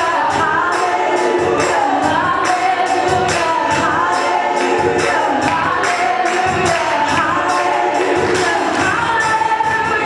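Live gospel worship music: several singers on microphones over instrumental backing, with a steady beat of sharp, crisp percussion strokes.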